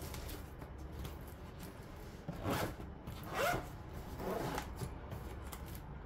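Zipper of an insulated wicker picnic cooler bag being pulled shut in three rasping strokes, about two and a half, three and a half, and four and a half seconds in.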